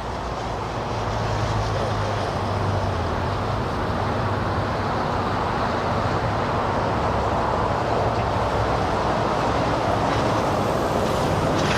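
Jet airliner engine noise: a steady rush with a low hum underneath, building over the first couple of seconds and then holding.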